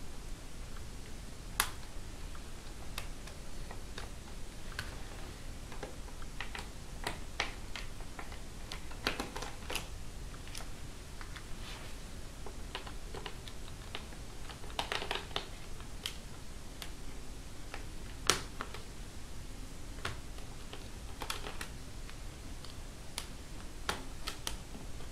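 Irregular small clicks and ticks of a screwdriver and fingers working tiny Phillips screws out of a laptop's plastic screen bezel, one click sharper than the rest about two-thirds of the way through.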